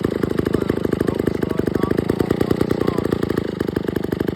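Vintage 1948 McCulloch two-man chainsaw's two-stroke engine running steadily at a constant speed, a rapid even train of firing pulses.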